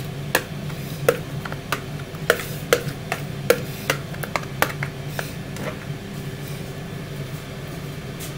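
A spoon knocking and scraping against a plastic mixing bowl, a dozen or so sharp knocks at uneven spacing that die out after about five seconds, as the last of the Yorkshire pudding batter is scraped out. Under it the Tower air fryer's fan hums steadily.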